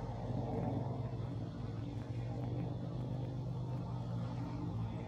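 A steady low mechanical hum, even throughout.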